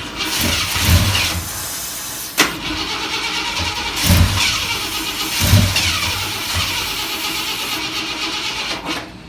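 Ford 390 V8 cranking on the starter while being fed propane, catching in a few irregular heavy surges without settling into a steady run, then cutting off near the end. The stumbling is from too much propane.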